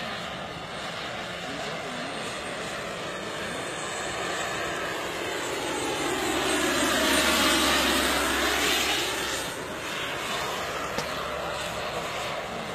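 Radio-controlled scale Mi-24 helicopter flying, its rotor and engine noise swelling to a peak a little past halfway as it makes a close pass, then falling away.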